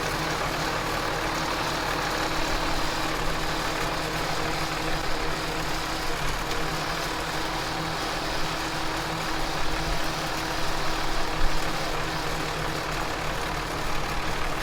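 Tractor engine running steadily, with a constant hum and a few brief louder moments near the end.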